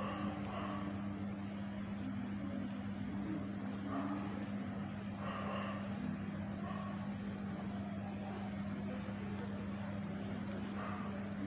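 Steady outdoor background: an even low hum, with faint high chirps repeating in short groups.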